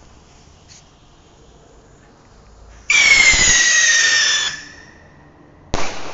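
A whistling firework goes off about three seconds in: one loud, shrill whistle lasting about a second and a half, sliding slightly down in pitch, then fading. A sharp bang follows near the end.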